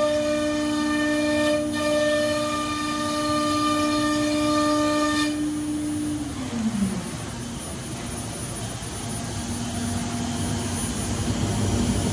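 Router spindle of a Weeke Venture 2M CNC machining center whining at a steady high pitch, then winding down with a falling pitch about six seconds in as it stops. A steady rushing noise carries on after it.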